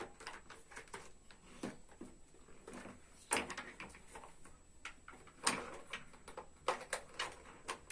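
Hard plastic toy airplane parts clicking and knocking as they are handled and fitted together, with a few sharper knocks about three seconds in, around five and a half seconds, and near the end.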